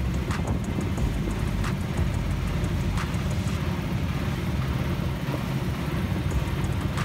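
Small wooden boat under way: its engine runs steadily, with wind buffeting the microphone and water rushing past the hull. Light knocks come about every second and a half in the first half.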